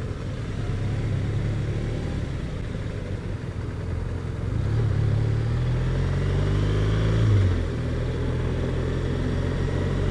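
BMW R1200 RT motorcycle's flat-twin engine running under the rider; about halfway through it accelerates, its note rising, then drops sharply at a gear change.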